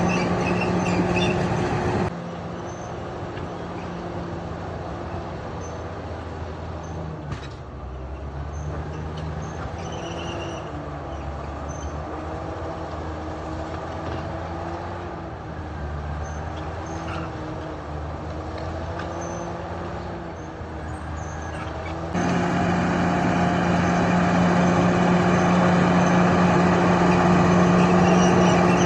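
Bulldozer's diesel engine running steadily. It drops abruptly to a quieter, lower, wavering note about two seconds in and comes back just as abruptly near the end.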